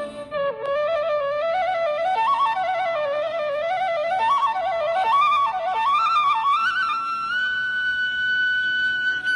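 Background music: a single wind-instrument melody moving up and down in quick steps, then holding one long note from about seven seconds in.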